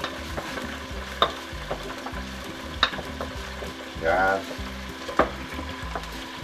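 Chopped food sizzling as it is stir-fried in a hot nonstick wok, stirred with a wooden spatula that knocks sharply against the pan a few times. A brief voice sound comes about four seconds in.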